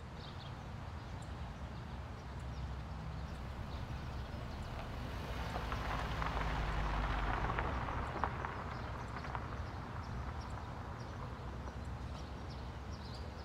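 Nissan Altima sedan driving up and pulling onto a concrete driveway. Engine and tyre noise grow as it approaches, are loudest around the middle, then ease off as the car stops, with one sharp click about eight seconds in. Birds chirp faintly throughout.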